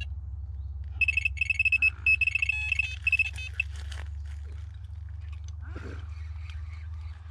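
Electronic carp bite alarm sounding a rapid string of high beeps for about two and a half seconds, the signal of a fish taking line on a run. Low wind rumble on the microphone underneath.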